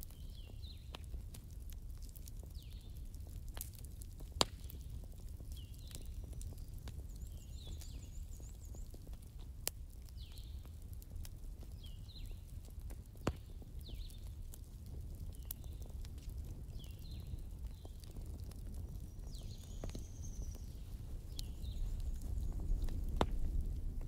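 Wood fire crackling, with sharp pops (three stand out, about 4, 10 and 13 seconds in) over a low rumble that grows a little louder near the end. A bird calls throughout with short, high, down-slurred chirps repeated about every second.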